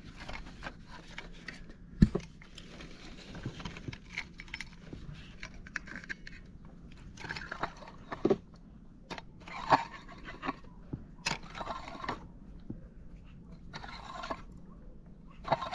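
Fishing tackle being handled in a boat: irregular rustling, scraping and clicking, with a sharp knock about two seconds in and a few more knocks later.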